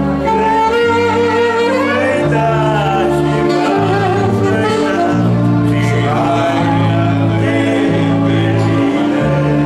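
Live band music: singing with a saxophone over keyboard backing, the bass line changing note about once a second.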